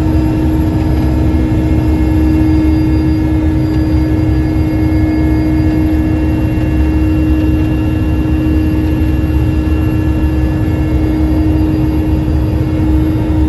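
Aircraft engine noise heard from aboard the aircraft: a loud, steady rumble with a constant hum that does not change.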